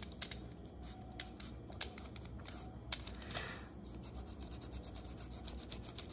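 Microfiber cloth rubbing loosened rust off the wet metal truck and wheel of a postwar Lionel tank-car frame, with faint rustling and many small scattered clicks of the metal parts.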